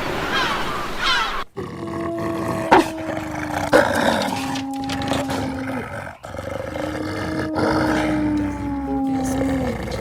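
Animal calls: quick falling chirps for the first second and a half, then, after an abrupt break, a series of long calls each held at a steady pitch.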